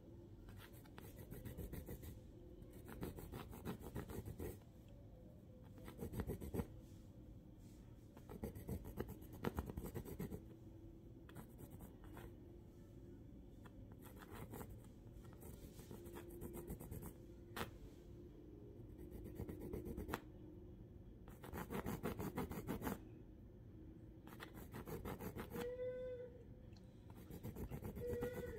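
Red-brown drawing pencil scratching across paper in quick sketching strokes, in spells of a second or two with short pauses between.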